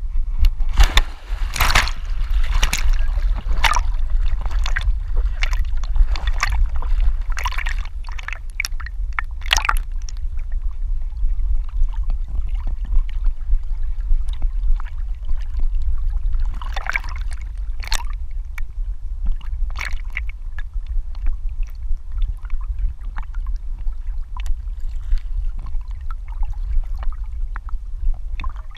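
A border collie swimming, heard from a GoPro mounted on its back at water level: irregular splashes and sloshing of lake water over a steady low rumble. The splashing is busiest in the first ten seconds and again a little past halfway.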